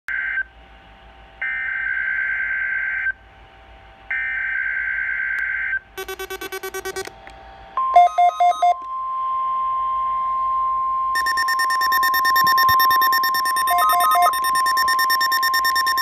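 NOAA Weather Radio Required Weekly Test coming through weather radio receivers: the screeching digital SAME header bursts, each about a second and a half long with gaps between, then about eight seconds in the steady single-pitched warning alarm tone begins and holds. The receivers' own electronic alert beeps sound as they activate, briefly around six seconds in and again over the alarm tone from about eleven seconds.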